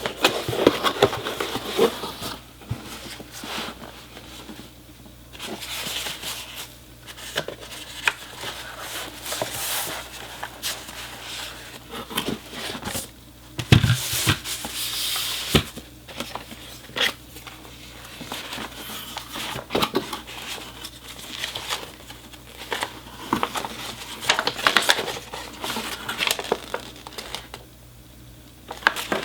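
Keyboard packaging being handled while the box is opened and unpacked: irregular rustling and crinkling of packing material, cardboard sliding, and small clicks and knocks, with a louder knock about fourteen seconds in.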